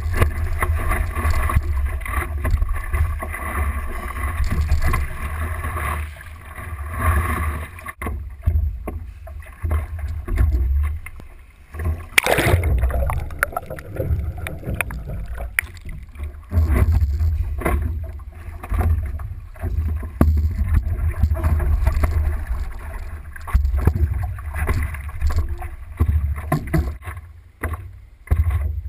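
Water rushing and splashing around a stand-up paddleboard, picked up by a GoPro camera on the board's nose, with a heavy low rumble that comes and goes. A loud splash comes about twelve seconds in.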